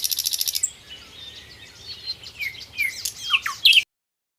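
Nightingale singing: a fast run of repeated high notes, then softer varied chirps and down-slurred whistles. It cuts off abruptly near the end.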